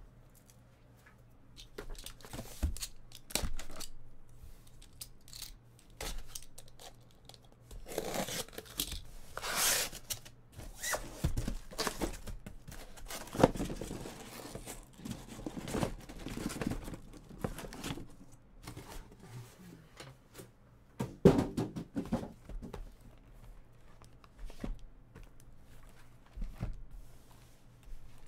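Sealed cardboard shipping case being opened by hand: packing tape tearing and cardboard flaps rustling, with scattered knocks and scrapes as the boxes inside are handled. The loudest tearing comes about a third of the way in and again past the two-thirds mark.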